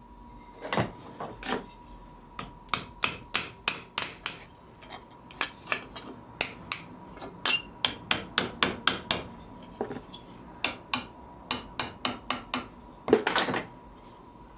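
Hammer blows driving iron lugs into the holes of a trunk-handle back plate held over vise jaws: a long series of sharp taps in quick runs of several strikes with short pauses between, and a louder flurry of blows near the end.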